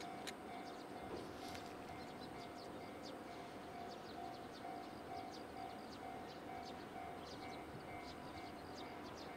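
Faint railway level-crossing warning bell ringing in a steady repeating pattern, with short high chirps, likely small birds, scattered over it.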